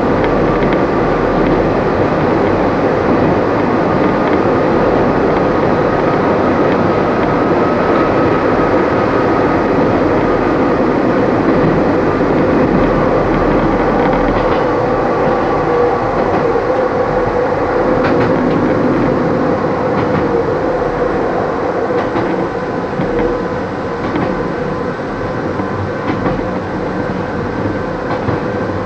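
Kobe Electric Railway 3000 series electric train running, heard from the driver's cab: a steady rumble of wheels on rail with a steady whine over it, and a few rail-joint clicks about two-thirds of the way through. The train is climbing the line's steep grade.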